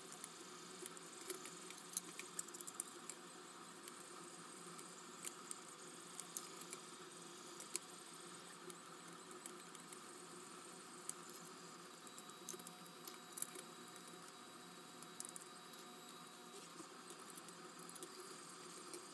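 Faint, irregular small clicks and scrapes as a screwdriver drives 3/4-inch screws into 3D-printed plastic telescope mount parts and the plastic parts are handled, over a low steady background hiss.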